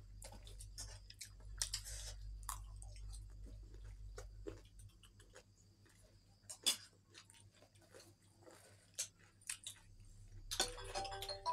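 A person chewing crunchy food close to the microphone: irregular crisp crunches and mouth clicks, busier near the end, over a low steady hum. An electronic chime starts right at the very end.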